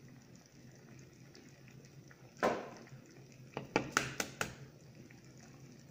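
A knock, then a quick run of sharp clicks and cracks, as the next egg is cracked open for the pot. Under it is the faint bubbling of the tomato-cream sauce at the boil.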